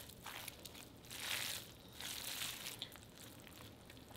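Gloved hands squishing and mixing a tray of cooked rice, egg, turkey and vegetables: soft crinkling and squelching in a few bursts, loudest about a second in.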